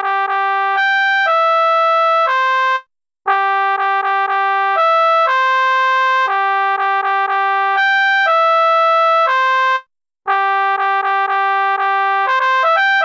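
Music notation software playing back a march melody with a synthesized instrument sound, one note at a time: quick repeated notes and longer held ones. It stops briefly twice, at about three seconds and about ten seconds.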